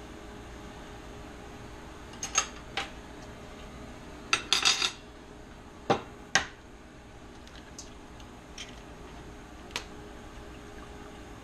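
Eggs being cracked against a bowl: scattered sharp knocks and clicks of shell on the bowl, with a quick cluster of taps about four and a half seconds in.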